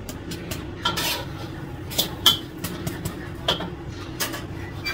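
Metal spatula scraping and clinking against a wok while a fried-noodle omelet is worked and turned out, about six sharp scrapes and knocks spread out over a steady low hum.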